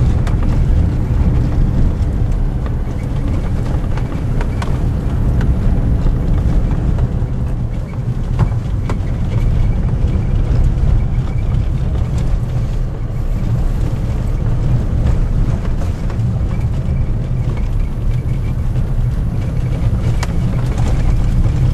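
Inside the cab of a Nissan Navara pickup driving on a laterite dirt road: a steady low rumble of engine and tyres on the loose surface, with scattered small knocks and rattles.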